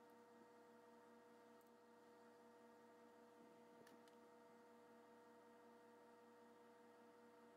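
Near silence: a faint steady electrical hum of several tones, with a few faint clicks in the middle.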